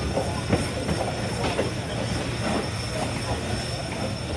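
Southern 401 steam locomotive under way, heard from the cab: a steady rumble with scattered knocks and clanks.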